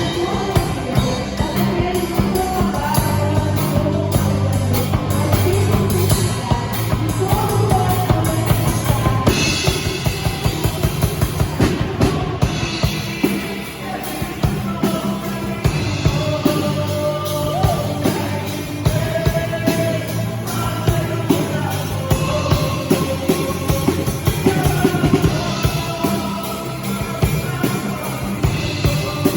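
A live band playing a worship song, with a drum kit keeping a steady beat under bass notes and singing.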